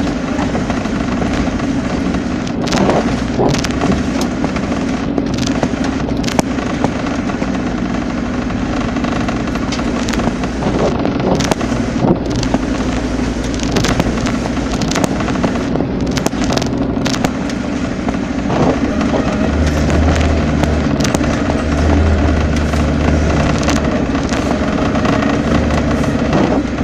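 A vehicle engine running steadily while driving off-road, with scattered sharp knocks and clatters throughout and a deeper rumble building for a few seconds past the middle.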